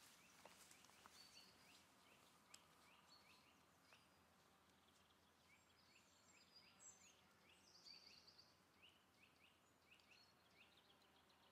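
Near silence, with faint birdsong: short chirps repeated every second or so.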